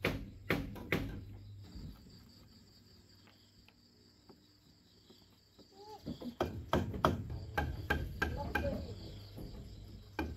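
A blade chopping notches into a green bamboo pole: a quick run of sharp knocks in the second half, over a steady high chirring of insects. A few sharp clicks at the start come from a knife cutting tomatoes on a plate.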